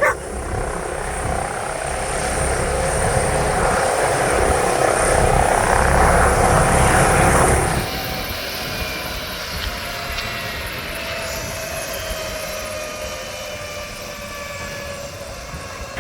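Emergency helicopter landing close by: loud rotor and engine noise builds for the first half. About halfway through it drops suddenly, leaving quieter running with a whine that slowly falls in pitch.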